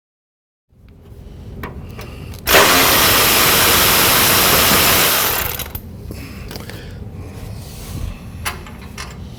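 A power tool on a socket extension runs steadily for about three seconds, driving out a bolt, with a few light tool clicks and knocks before and after.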